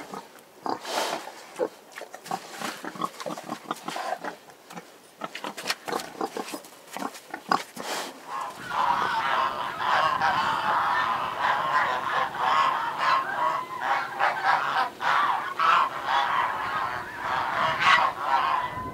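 Pigs grunting in a pen with short, scattered sounds. About eight and a half seconds in, this gives way to a flock of domestic geese honking continuously, the loudest part.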